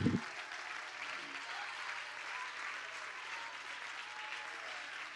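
A church congregation clapping and applauding steadily, fairly faint, in answer to a call to clap and give God glory.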